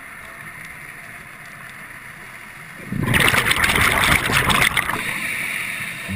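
Scuba diver exhaling through a regulator underwater: faint hiss for about three seconds, then a loud burst of bubbling lasting nearly two seconds that tails off.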